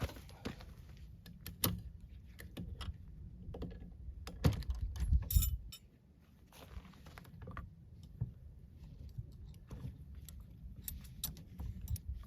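Scattered metallic clicks and knocks of a 12 gauge shotgun being handled and opened, with a louder cluster of knocks about five seconds in.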